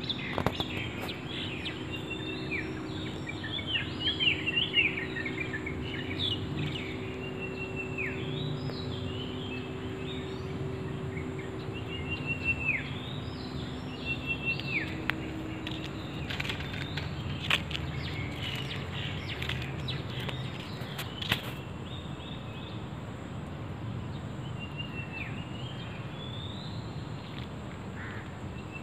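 Small birds chirping again and again, short calls with quick downward sweeps, over a steady outdoor background noise. A low steady hum runs under them for about the first half and then fades.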